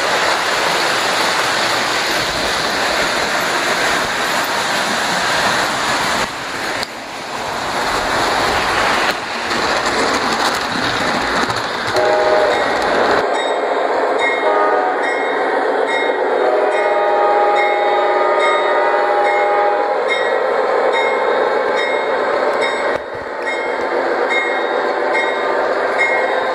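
O scale model trains running on the layout's track, a steady rumble of wheels and motors. In the second half the model diesel's sound system blows its horn, several tones held together for some seconds, over regular light ticks.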